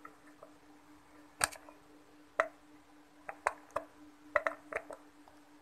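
Sharp small clicks and ticks of steel needle-nose pliers prying a burnt-out SMD LED chip off an LED bulb's circuit board, single clicks at first, then a quicker cluster in the second half. A faint steady hum runs underneath.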